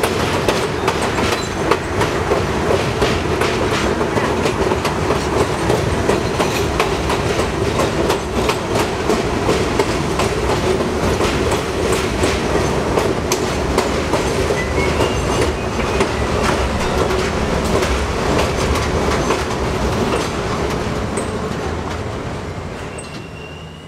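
R42 subway car running on elevated track, its wheels clattering steadily over the rail joints with a constant hum underneath. A faint high squeal comes in near the end as the train reaches a station platform, and the sound then fades out.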